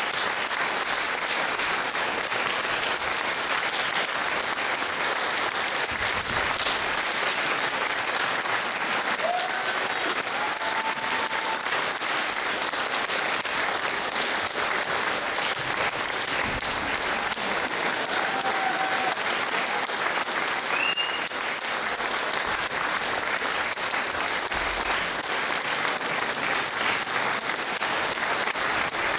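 Audience applauding steadily, dense and unbroken, with a few brief high calls rising above the clapping.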